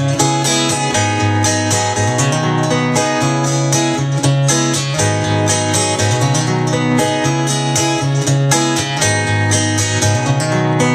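Acoustic guitar fingerpicked in a country style: a steady alternating bass under picked treble notes, with no singing.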